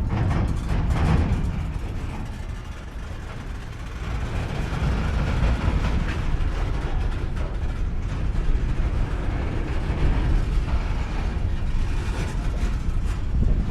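Empty coal train of open hopper cars moving on the rails: a continuous rumble and rattle of wheels and cars, with a few clanks in the first second or so. It eases off a few seconds in, then builds again and holds steady.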